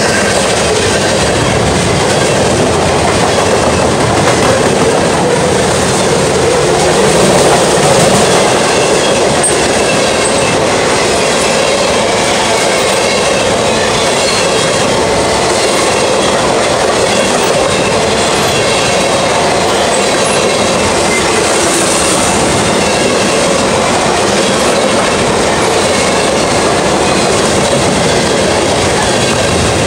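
Freight train cars rolling past at speed on the adjacent track: a loud, steady rumble of steel wheels on rail that swells slightly a few seconds in.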